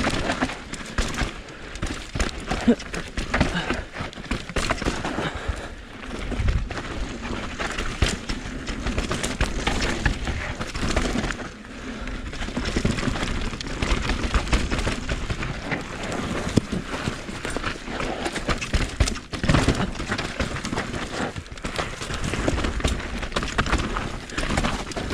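Mountain bike running down a rough downhill trail: a constant rattle of chain and frame with irregular knocks and crackles as the tyres hit roots and rocks.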